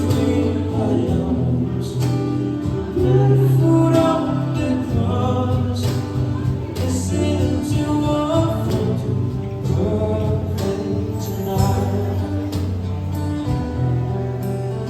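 Background music with a sung vocal over a steady bass line.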